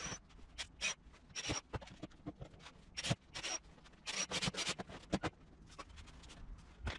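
Workshop handling sounds: an irregular run of short scrapes, rubs and light knocks as plywood panels and a cordless drill are moved about on a table.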